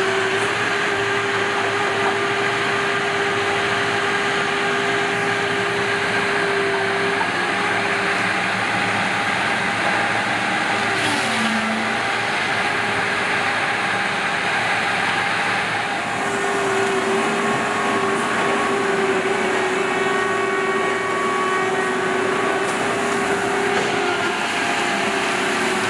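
Diesel engine and hydraulics of a log loader running steadily, with a constant whine over the engine noise. The pitch sags briefly about eleven seconds in, then returns to the same steady note.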